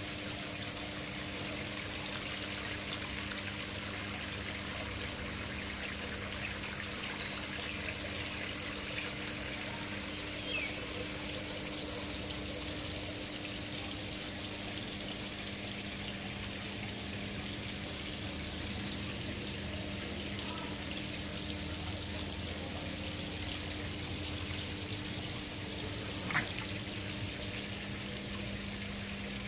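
Koi pond water running and trickling steadily, with a steady low hum underneath. One short click sounds near the end.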